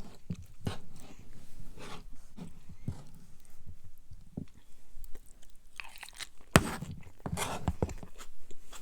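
A person chewing a mouthful of sloppy joe casserole close to the microphone, with irregular chewing and mouth clicks. There is one sharp louder click about six and a half seconds in.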